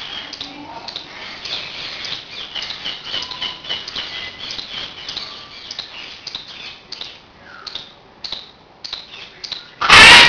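Birds chirping: many short, high chirps in quick succession, thinning out after about seven seconds. Near the end a sudden, very loud, harsh call breaks in.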